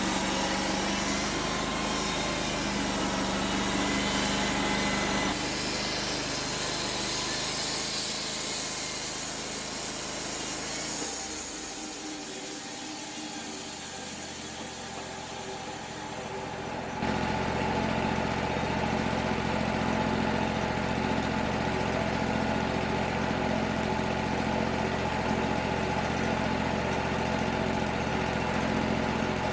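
Wood-Mizer LT35 sawmill's engine running steadily. It eases off and gets quieter from about 11 to 17 seconds in, then comes back suddenly at a steady pitch.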